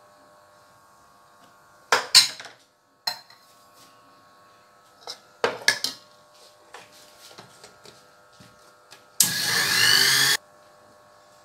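Sujata mixer grinder running in one short burst of just over a second, grinding dry semolina fine. Before it, a few sharp knocks and clatters as the jar is handled.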